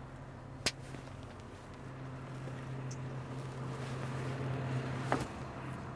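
Engine idling with a steady low hum. Two faint clicks are heard, and the hum stops about five seconds in.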